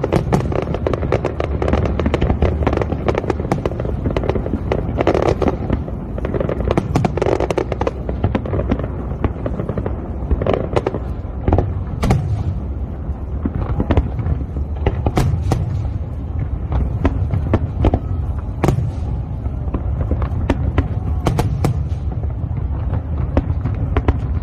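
Aerial fireworks display going off: frequent sharp bangs and crackles over a continuous low rumble of shell bursts.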